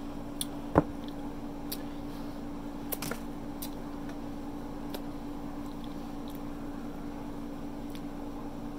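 Close-up eating sounds: scattered wet mouth clicks and smacks while chewing, one sharper click about a second in. A steady low hum runs underneath.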